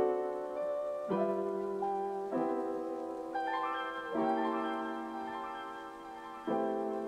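Background piano music: slow, gentle chords struck about every one to two seconds, each left to ring and fade.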